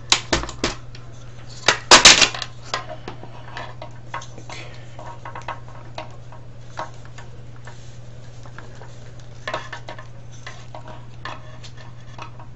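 Thin sheet-steel casing parts of a DVD player clanking as they are lifted off and set down, loudest about two seconds in, then scattered light clicks and rattles as parts are handled. A steady low hum runs underneath.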